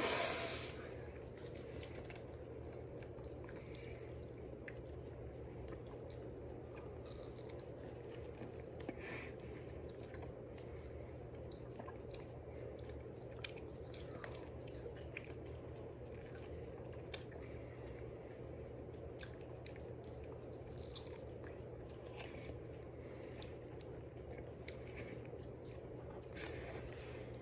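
Faint close-up mouth sounds of biting and chewing fresh strawberries: small scattered wet clicks over a steady low room hum, with one sharper click about halfway through.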